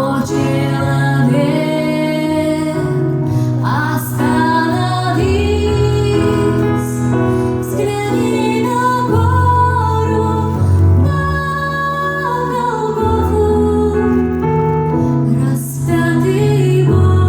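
A woman singing a slow Christian song over keyboard accompaniment with sustained bass notes.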